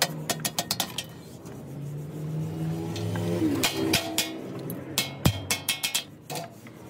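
A hand hammer strikes the edge of a rusty steel sheet resting on a steel anvil block, shaping it with quick, sharp metallic taps several times a second. The tapping pauses for about two seconds, during which a steady low hum is heard. It then resumes, with one heavier blow about five seconds in.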